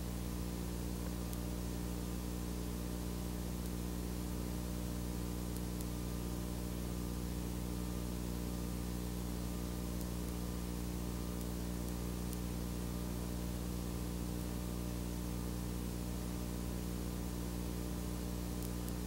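Steady electrical hum with a stack of evenly spaced overtones under a constant hiss, with no other sound. This is mains hum and line noise on an otherwise empty audio track.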